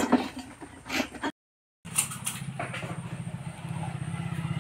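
Steel plates and lids clink as they are set into a plastic bucket. After a brief cut, an engine runs at idle: a low, steady hum with a fast even pulse that grows slightly louder near the end.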